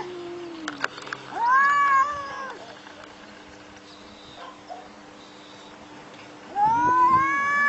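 Cats yowling in a fight standoff: a low growl fades out in the first second, then a drawn-out yowl rises and falls. After a long pause, a second long yowl comes near the end.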